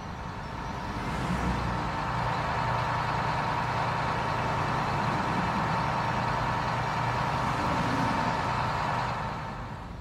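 Animated-cartoon sound effect of a school minivan's engine running as it drives. It grows louder after about a second, holds steady, and fades near the end.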